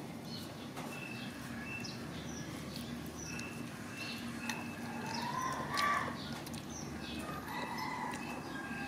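Small birds chirping in the background, short high chirps repeated again and again over steady low background noise. About six seconds in there is a brief, louder call that rises and falls.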